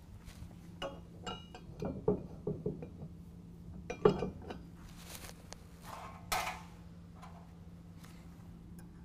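Steel hitch pin and snow-plow interceptor mount clinking and rattling against a 2-inch receiver hitch as the pin is worked through, with several short metallic clinks, a few sharper knocks and a couple of brief scrapes.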